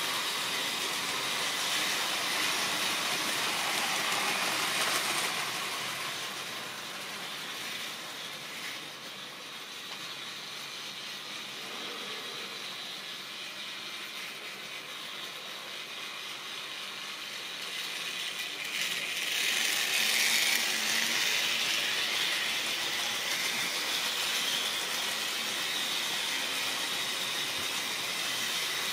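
Model railway trains running on the layout, with the steady whirr of the locomotive motors and the running of the wagons' wheels on the track. It is louder for the first few seconds, drops back from about six seconds in, and rises again from about nineteen seconds in as a train comes nearer.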